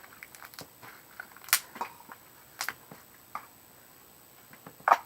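Homemade slime being squeezed and stretched by hand, giving irregular sticky clicks and pops, the sharpest about a second and a half in, near the middle and near the end.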